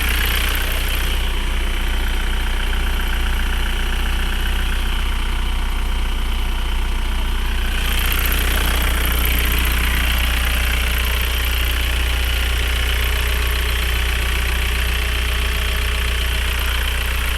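Mk4 Volkswagen's engine idling steadily.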